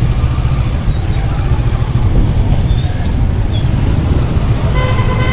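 Kawasaki Ninja 650's parallel-twin engine running at low speed in traffic, a steady low rumble mixed with road and traffic noise. A brief steady high tone sounds near the end.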